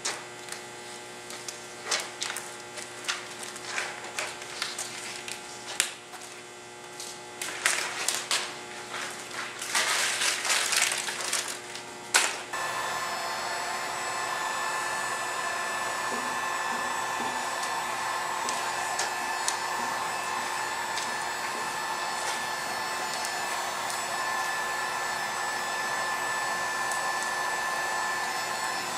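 Vinyl wrap film rustling and crackling in irregular sharp bursts as it is pulled and pressed onto a wheel rim. About twelve seconds in, an electric heat gun switches on and blows steadily, warming the vinyl so it softens and conforms to the rim.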